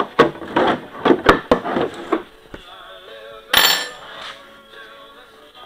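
Clatter of a Stihl chainsaw's plastic cover and metal bar being handled on a workbench: a quick run of knocks and clicks, then a short scraping rush about three and a half seconds in. Faint background music comes in under it.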